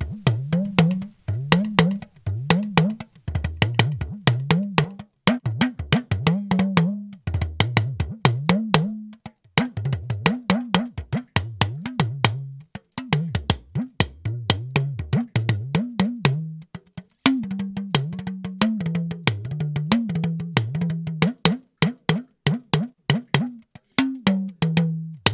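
Recorded talking drum played in quick rhythmic runs of sharp strokes, its pitch sliding up and down between strokes. The take was captured on a Shure SM58 dynamic microphone and plays back through a mixing channel-strip plugin.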